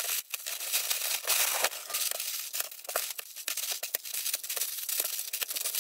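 Plastic wrap and bagged bricks crinkling and crackling as they are unwrapped and handled, with many quick sharp crackles throughout.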